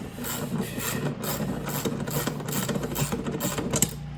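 Hand-tool work on metal parts: irregular clicking and scraping, a few sharp clicks a second, over a steady low hum.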